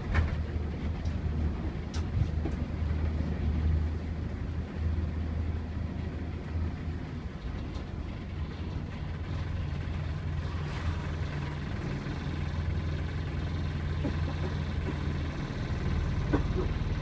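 Badgerline bus J858 FTC heard from inside the saloon while under way: a steady low engine drone with a few short rattles and knocks. The engine note shifts a little near the end.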